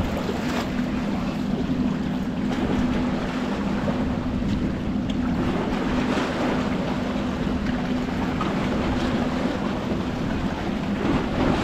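A boat motor runs with a steady, even hum, under wind and water noise.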